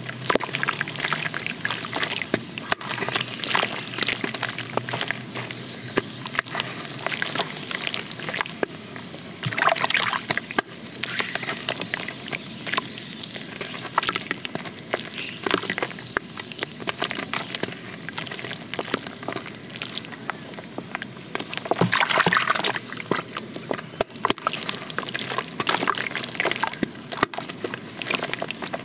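Soft white pressed-dirt blocks being squeezed and crumbled by hand into a basin of water. Wet sloshing and splashing runs throughout, dotted with many small crackles as the blocks break apart, with louder splashing surges about ten seconds in and again about twenty-two seconds in.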